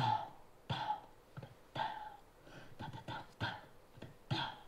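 Korean buk barrel drum struck with a stick, about ten sharp strokes in an uneven rhythm.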